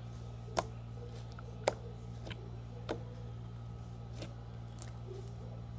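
Fingers pressing and poking a large glossy slime, giving about six sharp clicks and pops at irregular spacing, the loudest about half a second and a second and a half in, over a steady low hum.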